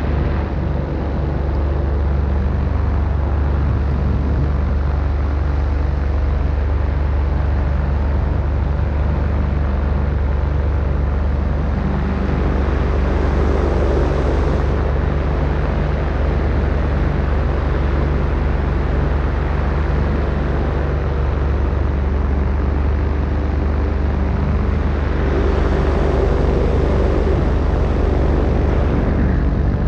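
Steady drone of a paramotor's engine and propeller under a paraglider wing, mixed with wind rushing over the microphone. The sound swells twice, about halfway through and again near the end.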